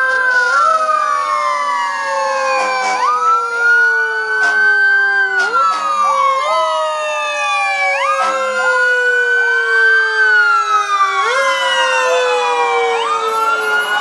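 Sirens on several fire trucks and an ambulance wailing together, their tones overlapping: each climbs quickly and then falls slowly over a few seconds before climbing again. A few short sharp clicks cut through the sirens.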